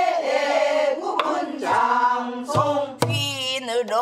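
Pansori singing: several voices sing a line together, with the buk barrel drum struck with a stick a few times. After a sharp drum stroke about three seconds in, a single woman's voice takes up the next line with a wide, wavering vibrato.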